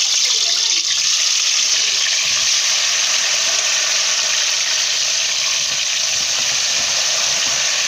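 Sweet potato wedges frying in hot oil in an aluminium pot, just added: a loud, steady sizzle.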